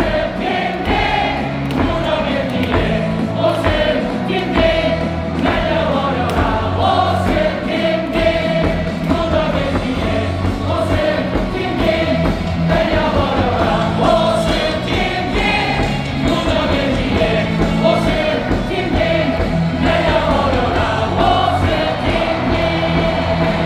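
Loud stadium music over a steady bass beat, with a mass of voices singing along like a choir.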